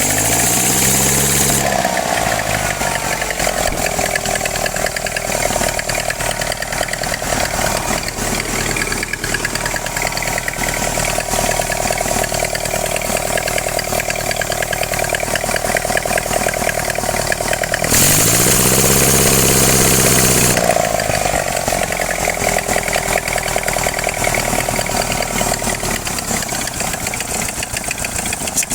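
Engine running steadily after a carburetor swap, revved up and back down twice: once right at the start and again about two-thirds of the way through, each rev with a loud hissing rush.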